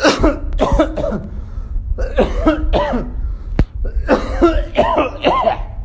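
A man coughing hard in three bouts, forced, put-on coughs rather than a real illness.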